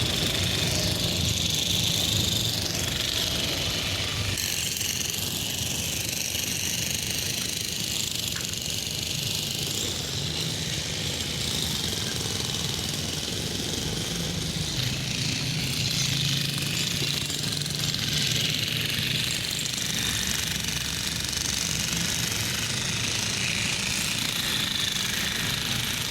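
Railway track-repair machinery hammering rapidly and steadily, with engines running under it.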